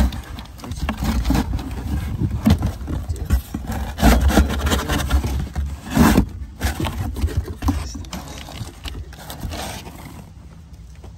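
Cardboard box scraping and rustling as a new squirrel-cage blower wheel is handled inside it, with a low rumble of handling noise. It is loudest in knocks about four and six seconds in and fades near the end.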